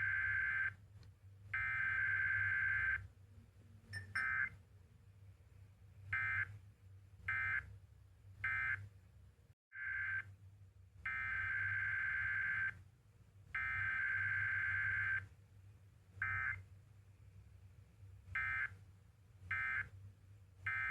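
Emergency Alert System SAME data bursts received over the radio: two-tone digital screeches, two longer bursts followed by a run of short ones, then the same pattern again about halfway through, over a low hum.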